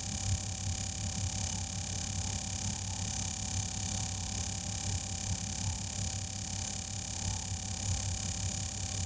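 Air compressor running steadily, with a fast low pulsing and a steady high whine.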